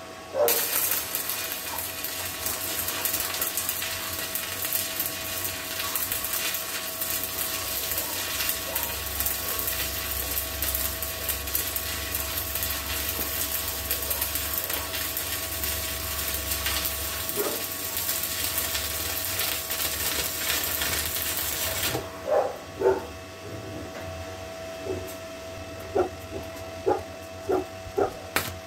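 Stick-welding arc crackling and sizzling as a Truper SOIN-110/130 inverter welder burns a 1/8" E6013 rod on 14-gauge steel sheet; the crackle runs unbroken until it stops about 22 seconds in. After that come several light taps, the rod being struck against the metal to restart the arc.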